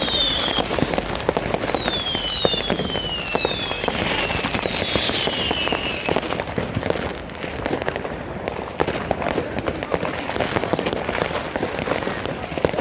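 Fireworks going off in quick, dense succession: a constant crackle of bangs and firecrackers. In the first half, several whistling fireworks each give a falling whistle.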